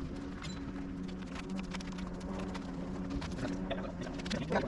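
A steady low hum with scattered light clicks and knocks as new plastic body panels are fitted to a dirt bike.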